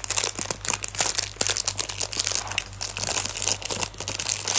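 Thin clear plastic packet of modelling-clay sticks crinkling and rustling in irregular crackles as it is opened and handled.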